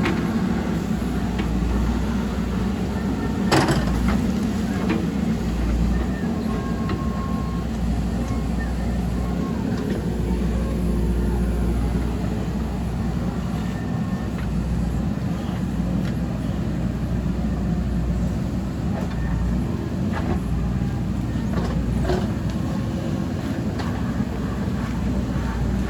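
JCB backhoe loader's diesel engine running steadily while working, with a sharp knock about three and a half seconds in and a few fainter clanks.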